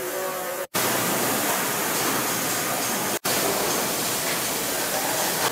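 Steady, even roar of factory noise on the floor of an ammunition plant, with no distinct rhythm or tone. It cuts out briefly twice, about a second in and again about three seconds in.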